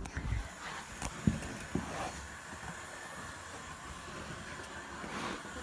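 Hornby model steam locomotive's small electric motor running steadily as it runs along the track, a steady whirr. A few sharp knocks and thumps come in the first second and a half.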